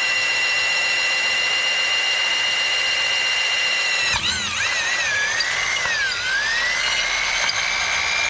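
Electric drill spinning with a steady high whine; about four seconds in the pitch sags and wavers as the bit bites under load, dropping lowest about six seconds in before climbing back. It is boring a hole through the bottom of a Toyota 5VZ-FE V6 engine block for a relocated dipstick.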